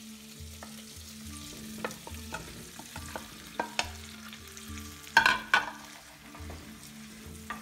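Diced turkey and onion sizzling in olive oil in a pot as the meat goes in, with scattered clicks of a wooden spoon stirring. A few louder knocks of the plate and spoon against the pot about five seconds in.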